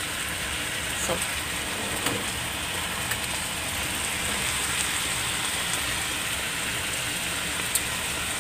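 Chicken wings and potato chunks sizzling in a frying pan: a steady sizzle with a few small pops.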